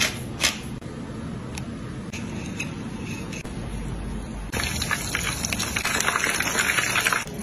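Bead-coated meat patties frying in hot oil: a dense crackling sizzle that starts a little past halfway and cuts off suddenly just before the end. Before it there is only a low steady hum and a sharp tap about half a second in.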